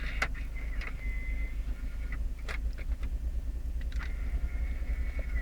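The Vauxhall Zafira's engine idling, a steady low rumble heard inside the cabin, with several sharp clicks spread across it.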